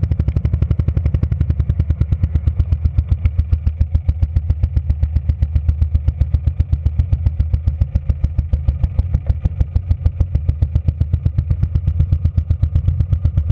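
Motorcycle engine running steadily while riding, with a rapid, even throbbing.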